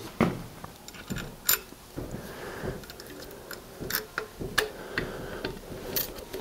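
Irregular light metallic clicks and taps of small fuel-line fittings, bolts and washers being handled and fitted by hand onto a diesel engine.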